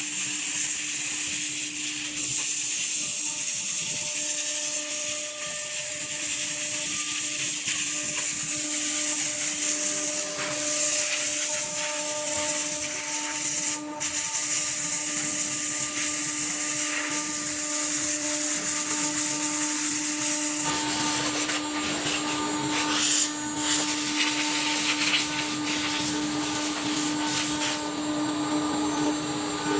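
ATC woodworking CNC router running and cutting, a steady spindle whine over a hiss of cutting noise. About two-thirds of the way through, the cutting noise grows fuller.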